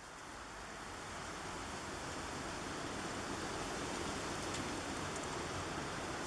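Steady, even hiss of background noise, fading in over the first couple of seconds and then holding level, with no distinct handling sounds.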